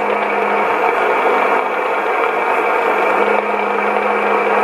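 Sony ICF-2001D shortwave receiver's speaker giving out steady static hiss on the 20 metre amateur band, with a steady low hum under it, in a gap between transmissions of an amateur radio contact.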